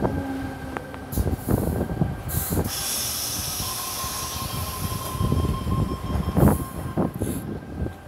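Tangara double-deck electric train running slowly in along the platform as it arrives: low rumble with irregular wheel knocks, a high hiss from about two seconds in, and a steady high squeal through the middle as it slows.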